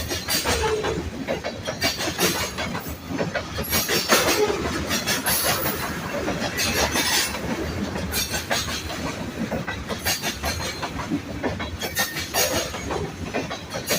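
Freight train rolling past, its steel wheels clacking steadily over the rail joints, with a few short wheel squeals.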